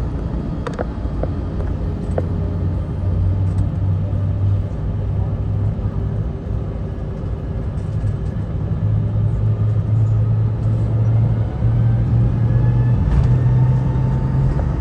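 Airbus A321 engines (IAE V2500 turbofans) at takeoff power heard from inside the cabin, with a deep rumble from the runway. The low drone and a higher engine whine both rise in pitch, growing louder toward the end.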